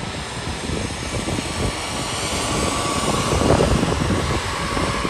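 Jet airliner engines whining steadily at taxi power, a high steady tone over a wide rushing hiss that swells a little past the middle. Gusty wind rumbles on the microphone underneath.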